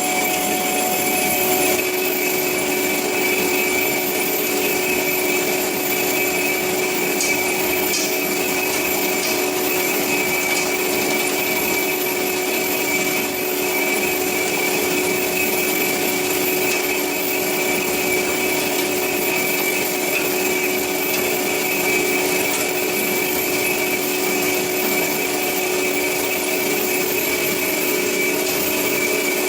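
Cormak S-200R semi-automatic metal-cutting band saw running and cutting through metal stock: a steady, even machine sound with a constant hum and a high whine over a hiss.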